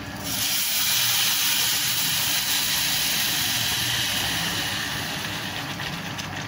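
Water poured from a jug into a saucepan of basmati rice frying in olive oil and butter, hissing and sizzling as it hits the hot pan. The hiss starts suddenly and slowly dies down.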